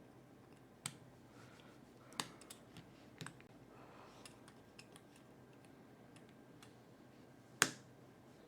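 Sparse small clicks and taps of a precision screwdriver working the tiny back-cover screws of a smartwatch's metal case, with one sharper click near the end.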